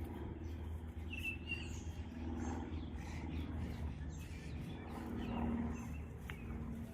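Birds chirping, with short high tweets scattered through, loudest about a second in, over a steady low outdoor rumble.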